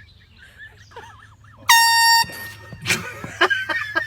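Air horn blasting once, a single loud steady blare about half a second long that starts abruptly a little under halfway through. It is followed by a quick run of short, sharp noises.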